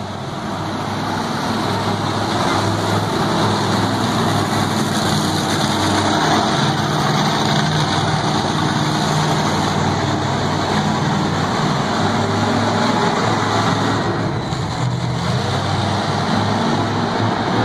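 Monster truck engine running loud as the truck drives and turns on the arena floor. It builds over the first two seconds, then holds steady with a slight dip near the end.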